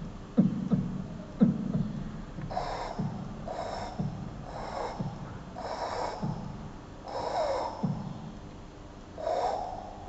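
A man imitating heartbeats with his mouth: low lub-dub thumps about once a second. From about two and a half seconds in, a breathy whoosh is added between the beats, mimicking the systolic murmur of mitral regurgitation with a muffled first heart sound.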